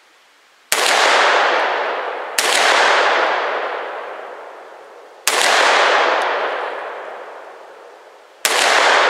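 Four slow, unevenly spaced shots from a semi-automatic pistol. Each crack is followed by a long echo that fades over two seconds or more.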